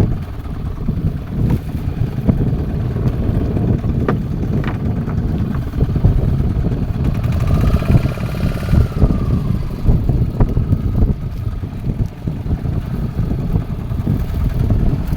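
Fishing boat engine running at sea, with wind buffeting the microphone as a rough, uneven low rumble.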